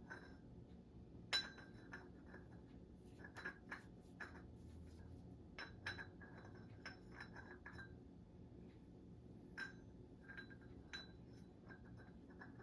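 Small steel Olympic-barbell parts lightly clinking and ticking against each other as they are handled during reassembly, scattered light clicks with a faint metallic ring, the sharpest about a second in.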